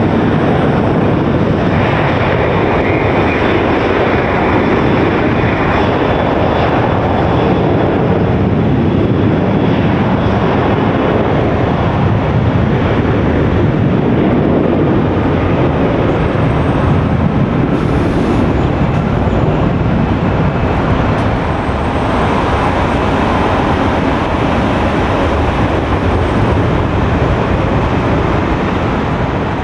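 Jet airliner engines running loud and steady, easing off slightly in the last third.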